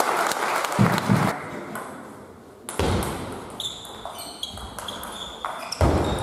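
Table tennis rally: the ball clicking sharply off bats and table, with a couple of duller thuds and short high squeaks.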